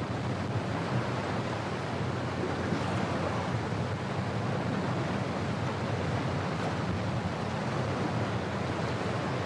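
Steady rush of water and wind with a low, even drone, heard aboard an inland cargo ship under way on the river.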